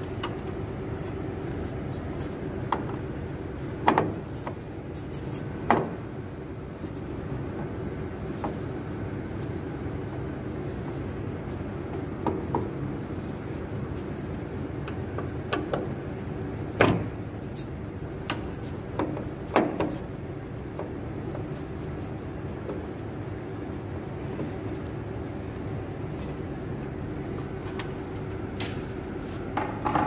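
Scattered sharp metallic clicks and knocks as a screwdriver works the screws and nuts loose from the top mounting strip of an air conditioner's condenser coil, over a steady low hum.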